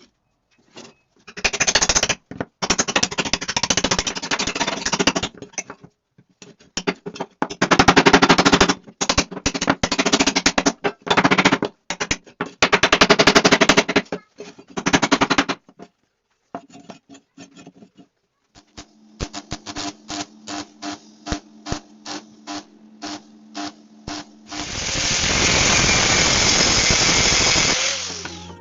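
Welding arc crackling in several bursts of a few seconds each, the rapid sputter of laying beads on steel. Later comes a run of sharp ticks, about three a second, over a low hum, and near the end a steady loud hiss lasting about three seconds.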